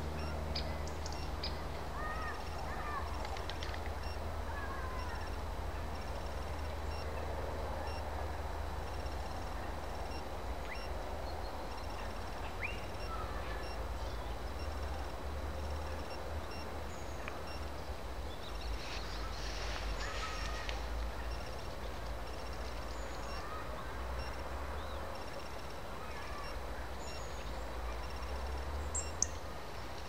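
Outdoor ambience: assorted birds calling and chirping now and then over a steady low rumble, with a brief hiss about two-thirds through and a sharp click near the end.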